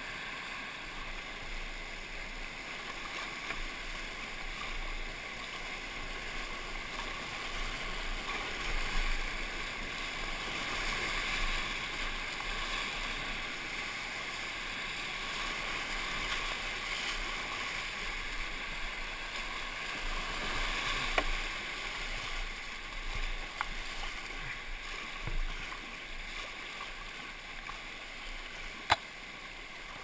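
Whitewater rapids rushing steadily around a kayak, swelling and easing as the boat runs through. A few short, sharp knocks come in the last third, the loudest near the end.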